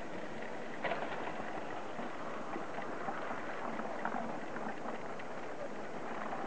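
T-bar ski lift running: a steady hiss from the haul rope passing over the gantry's sheaves, with scattered light clicks, the sharpest about a second in.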